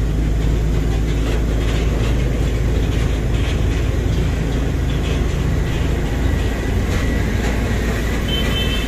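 Tata 1512 truck running under load up a ghat climb, heard from inside the cab: a steady engine drone with road noise. A faint high whistle comes in about six seconds in.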